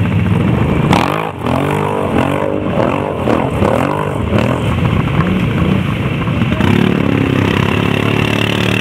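Quad bike (ATV) engines: one idles steadily underneath while another is revved in quick repeated surges, its pitch rising and falling about twice a second, as the quad works its way down the bank into the water. About a second in there is a single knock. Near the end the revs are held higher and steady.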